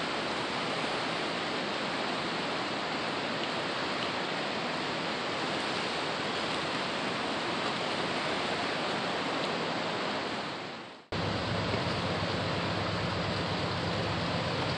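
Rain-swollen mountain river running high and fast: a steady rush of water. About eleven seconds in the sound fades out briefly, then returns with a deeper rumble.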